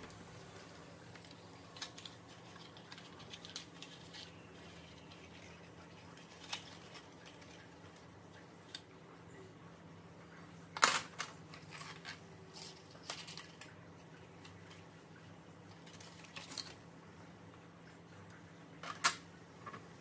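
Thin printed card being folded and creased by hand against a scoring board: scattered soft rustles and taps, with two sharper knocks, one about halfway through and one near the end. A faint steady hum lies underneath.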